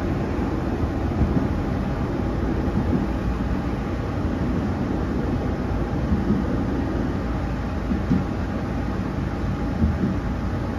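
Passenger train running at speed, heard from inside the carriage: a steady low rumble of wheels and running gear on the track.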